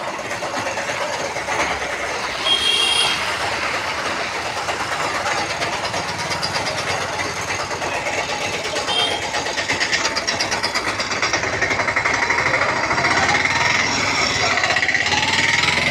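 Engine of a moving road vehicle, heard from on board, running with a fast, even clatter over road noise on a wet street. Its pitch rises in the second half as it picks up speed. A brief high beep comes about two and a half seconds in.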